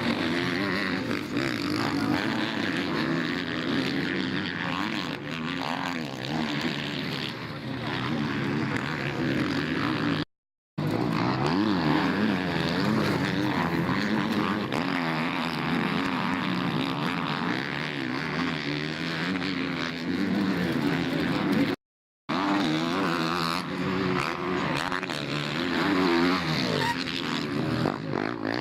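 Motocross bikes' engines revving and running on the track, their pitch rising and falling again and again as the riders open and close the throttle. The sound cuts out completely twice for about half a second.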